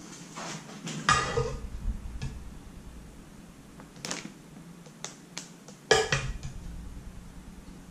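Kitchen clatter: utensils knocking and scraping against a baking dish, with two louder knocks about a second in and about six seconds in, and lighter clicks between.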